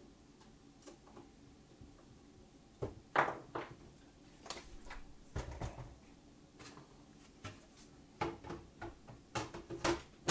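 The plastic top lid of an Apple IIe being handled and set back onto the case: a scattered series of light knocks and clicks, with a sharper click right at the end.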